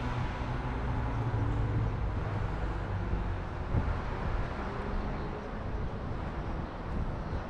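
Street traffic ambience: a passing vehicle's engine hum fades over the first second or two, leaving a steady low rumble of road traffic.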